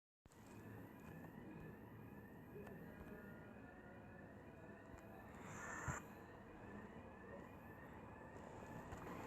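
Faint siren sounding a rapid, repeating rising yelp, about two sweeps a second, with a brief knock about six seconds in.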